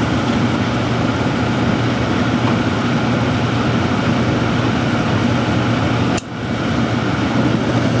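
Trane XE80 gas furnace running through its ignition sequence: a steady motor hum and rush of air while the hot surface igniter heats, just before the gas burners light. The sound dips sharply for a moment about six seconds in, then comes back.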